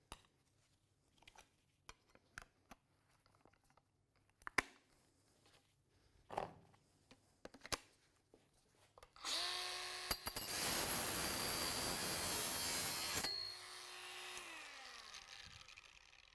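A few light clicks and knocks of a disc being handled and fitted, then a cordless angle grinder starts about nine seconds in and runs steadily at speed for about four seconds. It is switched off, and its whine falls in pitch and fades as the disc spins down.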